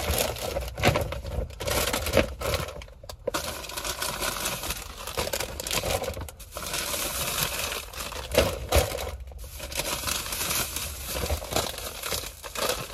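Shopping bags and packaging crinkling and rustling as someone rummages through them, in fits and starts with brief pauses.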